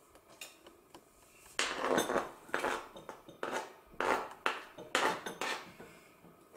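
A kitchen knife scraping chopped onion off a plastic cutting board into a bowl: a run of short scrapes and knocks, about two a second, starting about a second and a half in.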